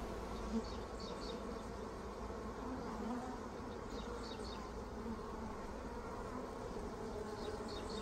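Honeybees buzzing in a steady hum, many bees crowded close at the entrance of a nuc hive.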